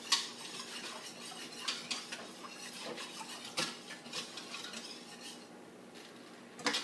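A metal utensil stirring sauce in a pot, scraping and clinking irregularly against the pot's sides, with a louder knock near the end.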